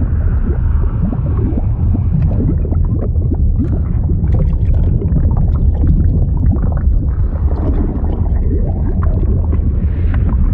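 Liquid bubbling and gurgling over a deep, steady rumble, with a constant patter of many small bubble sounds.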